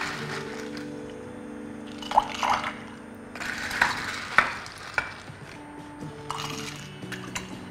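Ice cubes scooped with a metal scoop from a glass bowl and dropped into a tall glass of tea, clinking against the glass and splashing, with a few sharp knocks and rattles from about two to five seconds in. Soft background music plays underneath.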